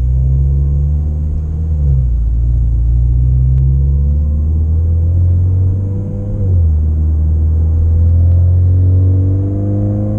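2018 Mazda 6's four-cylinder Skyactiv engine, breathing through a Corksport short ram intake, accelerating through the gears, heard from inside the cabin. The engine note rises, drops at an upshift about two seconds in, rises again, drops at a second upshift a little past halfway, and climbs once more.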